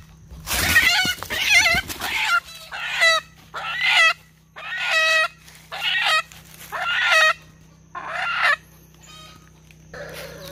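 Captured chicken squawking loudly in distress while held upside down by its legs, about nine harsh calls roughly one a second, then a fainter call near the end.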